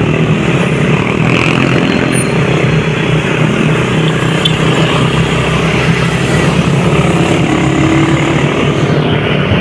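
Motorcycle engine running steadily under way, mixed with dense road and wind noise.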